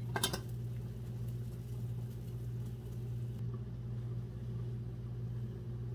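A pan lid clinks once against a stainless steel pan of steaming clams as it is handled with a pot holder. A steady low hum runs underneath.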